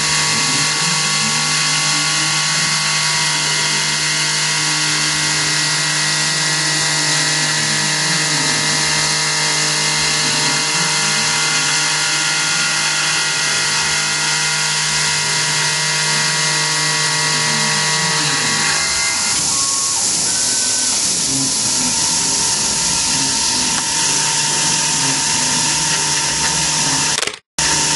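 Tormach PCNC 1100 CNC mill cutting a metal part under flood coolant: steady whining spindle and drive tones over a hiss of coolant spray, with tones from the axis stepper motors rising and falling every few seconds as the cutter sweeps around the round part. About 19 seconds in, the tones change as the machine starts a new move, and near the end the sound cuts out for an instant.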